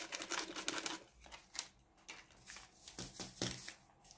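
Small packet of instant yeast crinkling and rustling as it is squeezed and emptied into a stainless steel mixing bowl, with a couple of dull taps about three seconds in.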